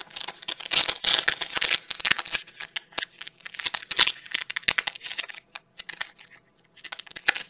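Foil wrapper of a football trading-card pack crinkling and crackling as it is handled and torn open by hand. The crackles come in a quick run over the first few seconds, then sparser ones, with a few more near the end.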